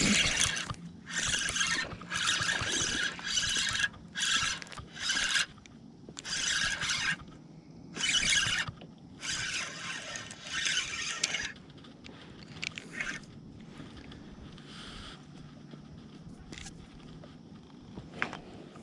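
Fishing reel cranked in short repeated spurts of about half a second to a second, a dozen or so in a row, as line is reeled in on a hooked bass. It then goes quieter, with only a few faint ticks.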